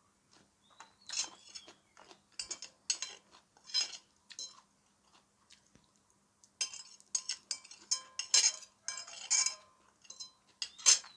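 Eating utensils clinking and scraping against a plate in quick, irregular strokes, some ringing briefly, with a short pause in the middle. This is the last of the rice being scooped up.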